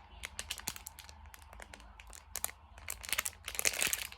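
Plastic packaging crinkling as it is handled, in irregular crackles that grow denser and louder in the second half.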